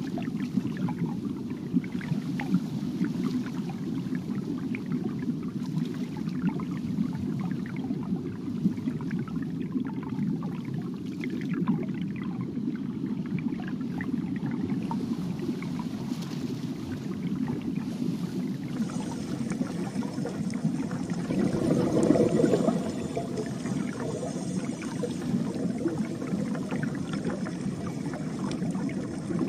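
Steady low rush of water with a light trickling crackle, swelling briefly about three-quarters of the way through.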